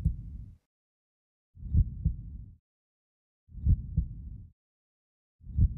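Heartbeat sound effect: slow, low lub-dub double thuds about every two seconds, four in all, with silence between.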